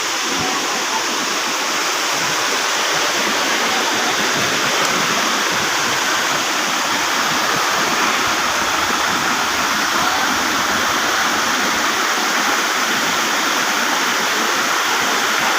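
Waterfall of Cambugahay Falls: a steady, unbroken rush of falling water.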